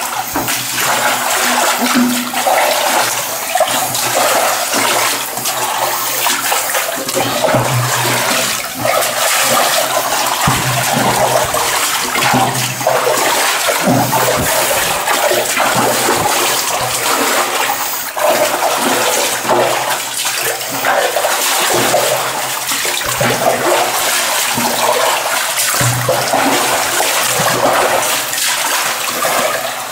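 Footsteps wading through shallow water and mud, a continuous sloshing and splashing in a narrow tunnel.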